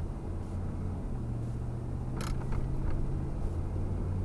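The 1990 Ford F-150's 302 (5.0 L) V8 running steadily under light throttle, heard from inside the cab on a slushy road. A sharp click sounds about two seconds in, followed by a couple of fainter ticks.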